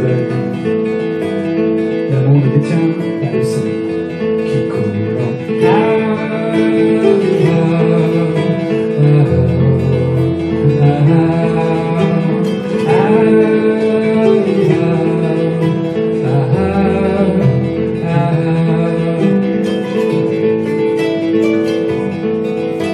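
Live acoustic guitar and kora playing together, with a man singing over them.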